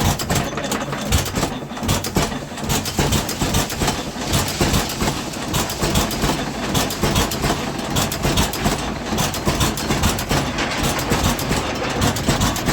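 Antique stationary engines and belt-driven line-shaft machinery running, a dense, rapid clatter over a steady low hum.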